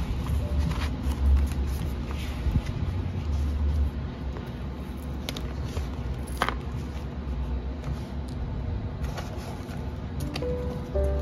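Handling of paper notebooks: the pages of a traveler's notebook's paper inserts riffled and flicked, with a few sharp taps over a low rumble. Background music with held notes comes in near the end.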